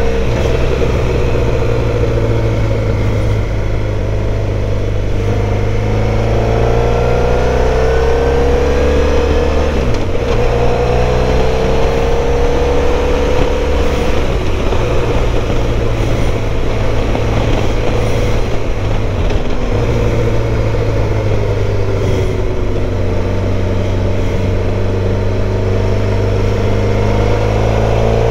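Motorcycle engine running at road speed with steady wind rush, its pitch rising and falling with the throttle.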